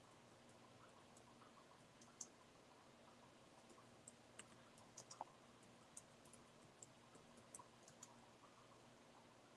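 Near silence with faint, irregular clicks from a computer being worked, as when clicking and typing to post online.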